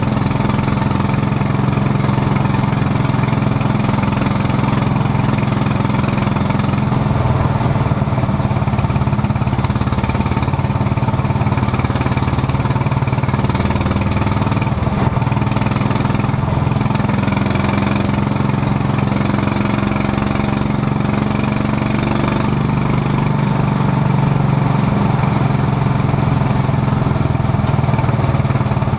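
Quarter midget race car's small single-cylinder engine running steadily at racing speed, heard from inside the cockpit.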